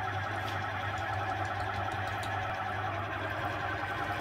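Electric citrus juicer's motor running steadily, with a constant hum, as a lemon half is pressed down onto its spinning reamer.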